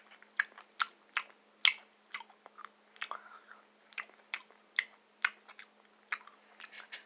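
A person chewing a BeanBoozled jelly bean: a run of short, sharp mouth clicks, about two or three a second.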